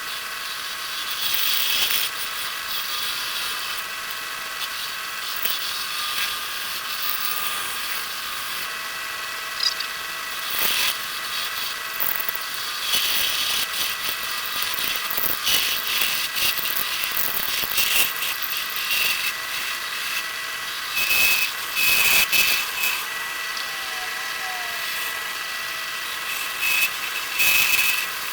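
Antique wood lathe running with a steady motor hum and whine while a freshly sharpened turning tool cuts the spinning wooden blank, an irregular rasping hiss that swells louder at times.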